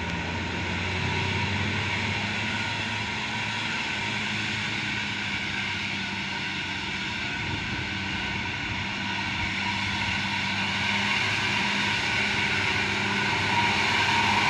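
Tour bus's diesel engine running steadily as the bus climbs a steep hill, growing louder near the end as it comes closer.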